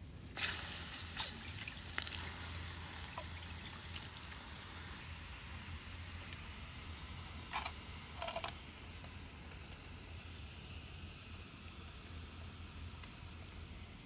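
Hands crumbling and breaking apart a lump of furnace slag crusted with wood ash: crunches and scrapes, with a fine hiss of falling ash. The sharpest crunches come in the first few seconds, and two more come a little past the middle.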